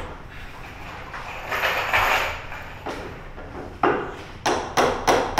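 A series of scraping noises and knocks, ending in three sharp bangs in quick succession near the end.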